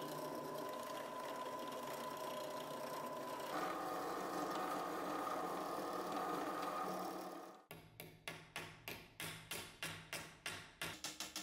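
Bench drill press running steadily while it drills into a brass grip band, its tone stepping up slightly about three and a half seconds in. From about two-thirds of the way through, a small hammer taps the brass band on an anvil, about two to three light strikes a second, quickening near the end.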